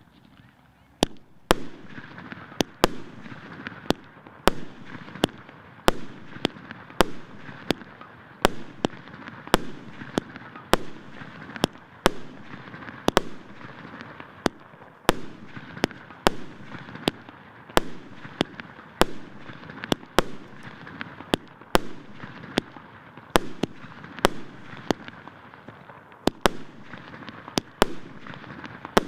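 A 37-shot, 1.25-inch firework cake (consumer fireworks battery) firing its shots in sequence: a long run of sharp bangs, roughly one every half second to second, with a steady noise between them.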